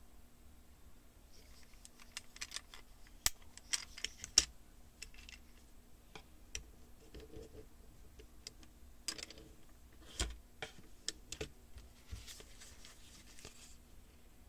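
Small plastic toy pieces, a fingerboard skateboard and a ring clip, clicking and tapping as they are handled against a paper surface, in irregular clusters that are loudest about three to four and a half seconds in and again around ten seconds. A paper sheet rustles near the end.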